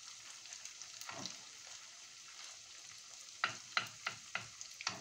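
Potato pancakes frying in hot oil in a pan, a steady sizzle. From about three and a half seconds in, a quick run of five or so sharp clicks as a spoon shapes fresh potato batter in the pan.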